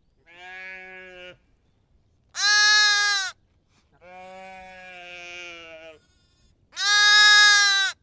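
Sheep bleating: four calls, loud high-pitched bleats alternating with quieter, lower-pitched ones, the second of the quieter ones lasting about two seconds.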